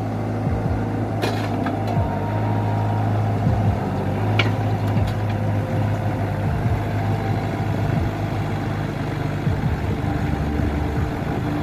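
Kubota K-045 mini excavator's diesel engine running steadily as the machine slews and travels on its crawler tracks, with a few short sharp clicks.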